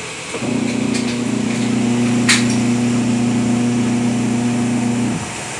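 Sharp twin-tub washing machine motor humming steadily. It switches on about half a second in and cuts off abruptly after about five seconds, with a single sharp click partway through.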